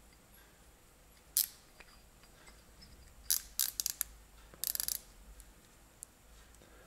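Outside micrometer being closed onto a small hardened steel parallel block: sharp metallic clicks, one about a second and a half in, then two quick runs of several clicks around three and a half and five seconds in.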